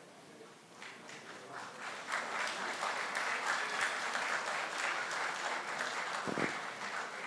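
Audience applauding, starting with scattered claps and filling out into steady clapping about two seconds in. A brief low thump comes near the end.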